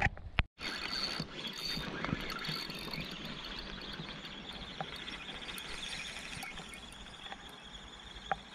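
Fishing reel being cranked in a steady, fine ratcheting whirr while a hooked asp is played on a sharply bent rod. A couple of sharp knocks come right at the start.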